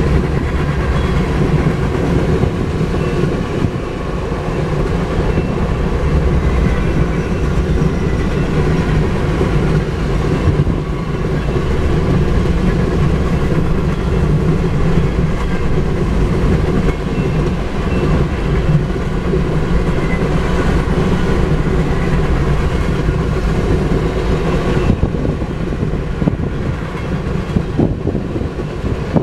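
Freight cars of a manifest train rolling steadily past: the continuous rumble and rattle of steel wheels on the rails.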